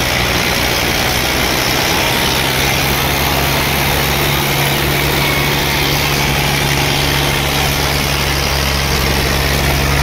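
Swaraj 855 and Sonalika tractors' diesel engines running steadily under heavy load, the two tractors chained back to back and pulling against each other in a tug-of-war.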